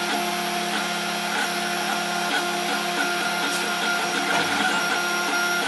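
Snapmaker 2.0 3D printer printing the last of a job, running steadily with its motors and fans making a hum of several held tones over a soft hiss.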